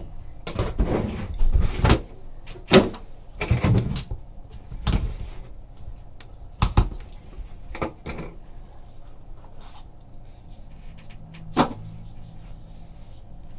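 Handling noises of unboxing a trading card box: a run of knocks, taps and scrapes as the outer box lid comes off and the inner card box is lifted out, then lighter clicks and scratching as a box cutter slits the seal, with one sharp knock near the end as the inner box is opened.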